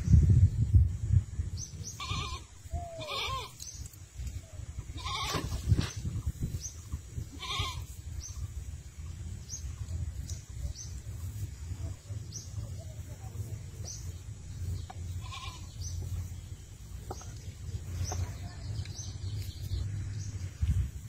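About five short animal calls, most in the first eight seconds and one more later, over a steady low rumble, with short high chirps repeating about once a second.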